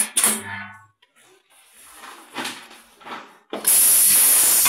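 Pneumatic button-attaching machine cycling. Just after the start it gives a short clunk with a brief low hum and some ringing, then quieter handling of the fabric, and about three and a half seconds in a loud burst of air hiss that runs to the end.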